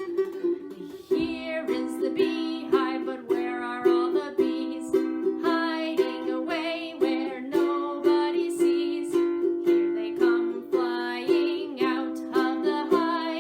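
Music: a children's song accompanied by a small strummed string instrument, with steady, regular strokes throughout.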